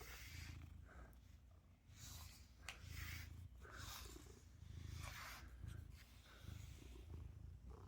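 Domestic cat purring faintly. The low rumble swells and eases in a slow rhythm with its breaths, while short soft swishes of a brush pass through its fur.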